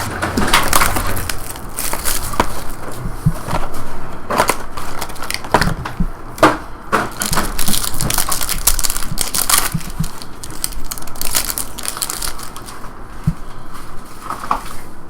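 Plastic wrapping being crinkled and torn as a trading-card box is opened, a dense irregular crackle with sharp tearing strokes throughout.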